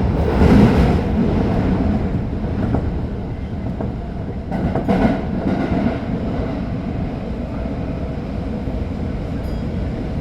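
Tokyo Metro 05 series subway train running in a tunnel: a steady rumble of wheels on rail, with clusters of wheel knocks over rail joints about half a second in and again around five seconds.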